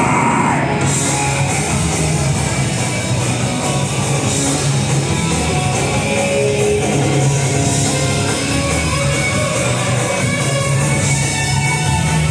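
Punk band playing live: loud distorted guitars and bass over a fast, steady drum beat with driving cymbals, heard from inside the crowd.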